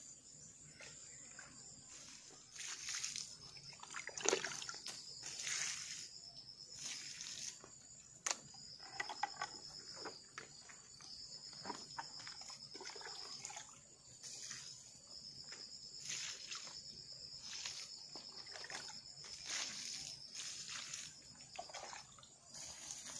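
Water sloshing and splashing in a plastic bucket and being scooped out onto corn plants, in short irregular splashes. Behind it, insects trill steadily in a high note that breaks off now and then.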